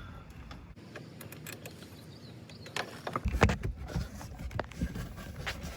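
Hands working on plastic trim under a car's front bumper: faint rustling, then from about three seconds in a run of sharp clicks and knocks as the panel is bent and handled.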